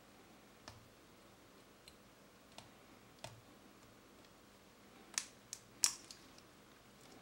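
Faint, scattered small clicks and ticks from a metal pick working at a small plastic push-button switch. The sharpest clicks come close together near the end.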